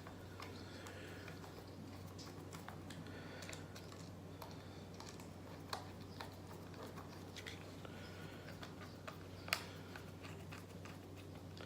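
Faint, scattered light clicks and taps of small hair-clipper parts being handled, a couple of them sharper, over a low steady hum.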